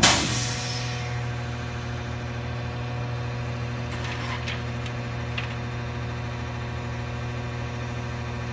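Front-loader garbage truck's engine idling steadily. A loud clatter right at the start as junk is dropped into the metal front-load bin, then a few light knocks from the bin about four to five seconds in.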